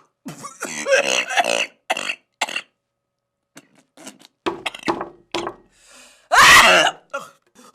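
A woman coughing and gagging on a mouthful of noodles: a run of short hacking coughs in the first two seconds, scattered smaller splutters, then one loud retching cough about six and a half seconds in as she coughs the noodles out.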